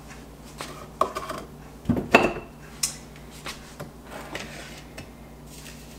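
A few light knocks and clatters of a plastic measuring cup and sugar container handled on a countertop while white sugar is scooped and measured out. The loudest knock comes about two seconds in.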